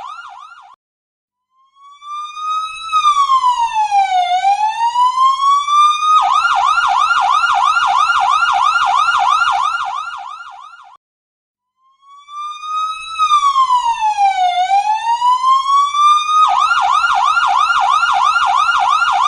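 Electronic ambulance siren cycling through its tones. It opens with a rapid yelp fading out, and after a short silence a single slow wail rises, dips and climbs back, then switches to the rapid yelp, which fades out. The pattern repeats twice.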